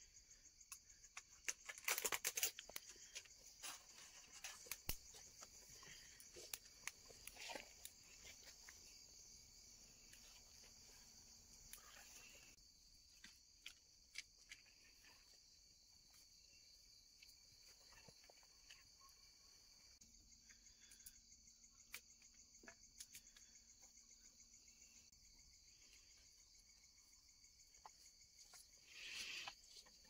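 Faint, steady high-pitched insect chorus, with scattered soft clicks and rustles; a louder rustle comes about two seconds in and another near the end.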